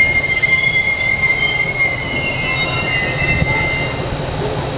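JR Kyushu KiHa 220 single-car diesel railcar squealing as it slows to a stop, several high-pitched tones that waver and die away about three and a half seconds in, over the low rumble of its diesel engine.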